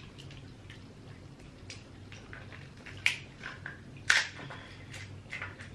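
Close-miked eating of a seafood boil: scattered wet clicks and smacks of chewing and handling food, with two sharper clicks about three and four seconds in, over a faint low hum.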